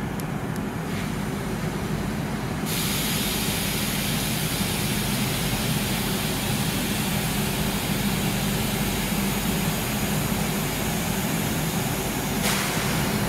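Southeastern Class 395 Javelin electric train standing at the platform with a steady low hum from its onboard equipment. A hiss starts abruptly about three seconds in, runs on and swells briefly near the end.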